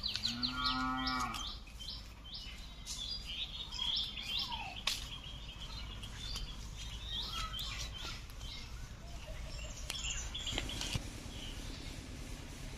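A cow moos once, a short, level-pitched call in the first second and a half. Birds chirp throughout, with a few sharp knocks.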